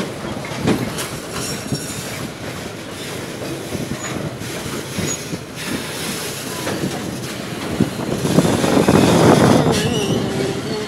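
Freight train of flat car-carrier wagons rolling past, wheels knocking over the rail joints at irregular intervals. It grows louder over the last few seconds, with a brief wavering wheel squeal near the end.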